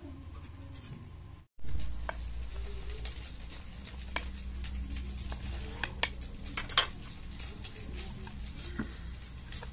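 Table knife cutting through a crisp pan-toasted sandwich on a ceramic plate: crackly crunching of the crust with a few sharp clicks of the blade against the plate, over a steady low hum.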